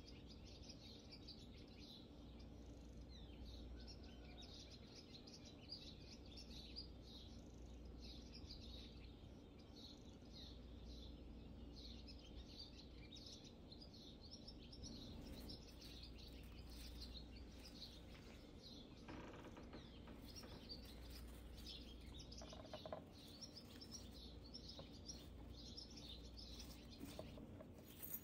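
Faint, continuous chirping of small birds, many short high calls packed close together over a low steady hum, with a few soft clicks in the second half.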